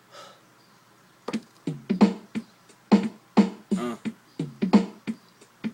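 Beatboxing: a hip-hop beat made with the mouth, punchy kick and snare sounds in a steady rhythm, starting just over a second in.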